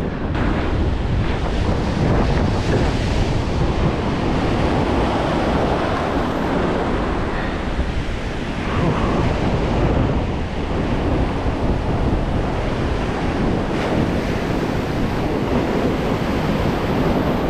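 Ocean surf washing onto a sandy beach, with wind buffeting the microphone: a steady rush of noise with a heavy low rumble that eases slightly a couple of times.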